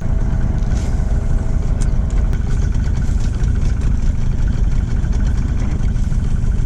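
Boat's engine running steadily at idle, with a dense low rumble and a fine fluttering rattle, coming in at full level all at once.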